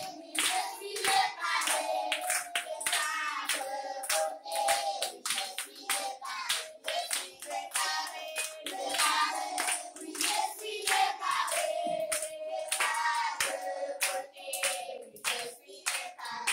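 A group of children singing a song together while clapping in a steady rhythm, about two claps a second.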